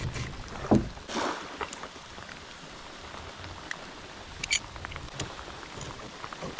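Metal pipes and clamp fittings handled against a plastic kayak: a low knock under a second in, a short rustle, then scattered small clicks and a sharp metallic click about four and a half seconds in.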